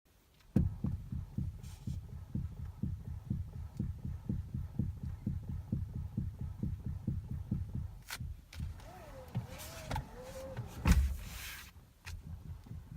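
Toyota Avensis steering knocking as the wheel is turned: a run of low, even knocks about three times a second. Near the end the knocks break off for a few sharp clicks, a wavering squeal and one loud thump, then start again.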